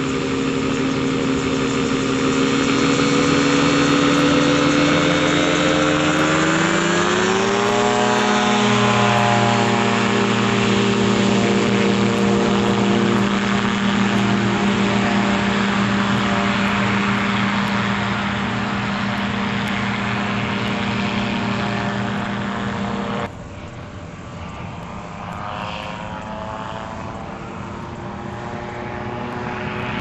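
Gyrocopter engine and propeller running steadily. About seven seconds in the pitch rises as the engine speeds up, then holds there. Well past halfway the sound drops suddenly to a quieter engine note that slowly builds again.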